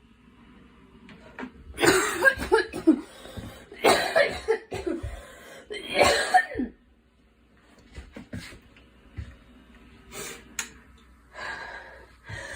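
A girl coughing: three loud fits of rapid coughs in the first half, each several coughs in quick succession, then fainter, shorter coughs.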